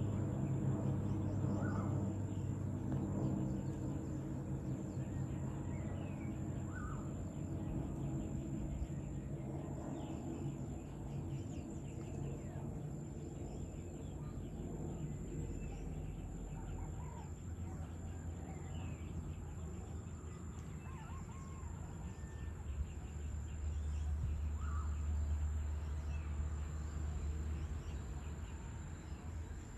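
Evening outdoor ambience: scattered short bird calls and chirps over a steady high insect drone and a low rumble of distant town traffic. The rumble is stronger at the start and swells again near the end.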